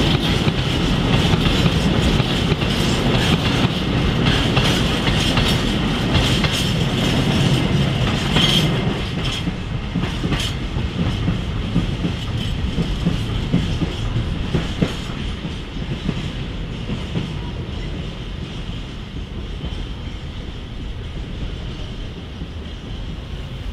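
Empty coil-carrier freight wagons rolling over rail joints and points: a low rumble and a run of wheel clicks, with a steady high wheel squeal, all fading slowly as the train moves away.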